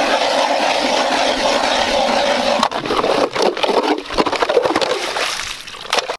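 Hand-cranked ice auger drilling through pond ice: a steady grinding shave of the blades for the first few seconds, then an irregular run of knocks and scrapes as the auger breaks through into slush and is worked up and down in the hole.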